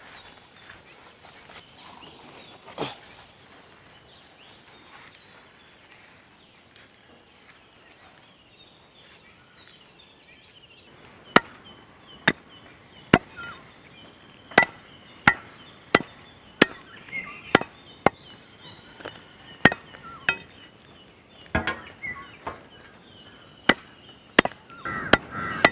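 Steady outdoor background with birds chirping. From about eleven seconds in, a blade chops repeatedly onto a block: sharp, uneven strikes about once a second, each with a short ring.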